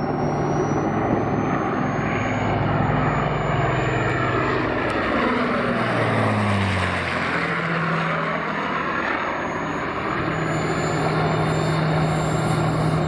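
Avro Lancaster B1 bomber's four Rolls-Royce Merlin V12 engines running as it flies low overhead; the engine note drops sharply in pitch about six to seven seconds in as it passes over, then carries on steadily as it flies away.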